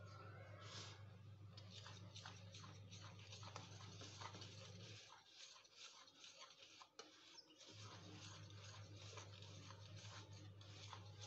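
Faint scratching and light tapping of a utensil in a ceramic bowl as dry milk powder, flour and baking powder are stirred, over a low steady hum that drops out for a few seconds in the middle.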